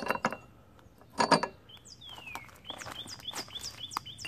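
A brief metallic clink about a second in, then a bird singing a quick run of high falling chirps, several a second.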